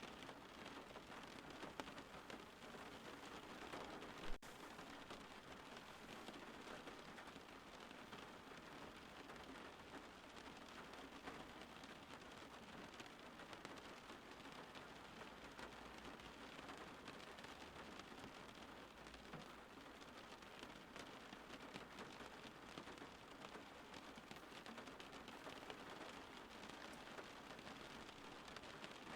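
Faint, steady rain falling, an even hiss of drops with no thunder, broken once by a single sharp click about four seconds in.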